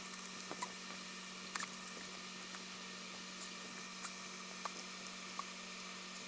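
Faint, scattered small clicks and taps as a MacBook Air logic board and its cables are handled and fitted into the aluminium laptop case, over a steady low hum and hiss.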